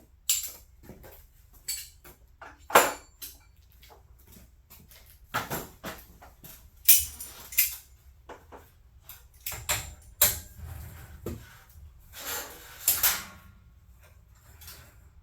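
Irregular metallic clinks and clanks of metal tools and hardware being handled, about a dozen sharp knocks, some with a brief ring, over a low steady hum.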